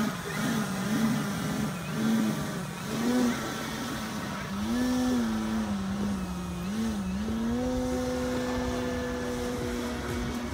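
Nitro glow engine of a Hangar 9 Ultra Stick radio-control plane in flight. Its pitch swings up and down several times with throttle and manoeuvres, then holds a steady note for the last three seconds.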